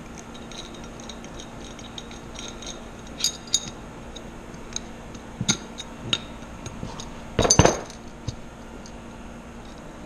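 Light metal clinks and ticks as a small nut and washer are worked onto an inner tube's valve stem through a metal aircraft wheel half, with one louder knock about three quarters of the way through.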